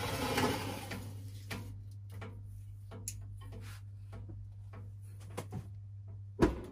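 Small hard objects handled on a workbench: scattered light clicks and knocks, with one sharp, louder knock near the end, over a steady low hum. A brief noisy rush fades out about a second in.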